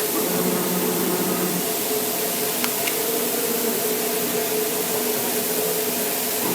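AOKE DCZ70 digital flatbed cutter running: a steady rushing hiss with a motor hum underneath that changes pitch as the cutting head moves, and two faint ticks near the middle.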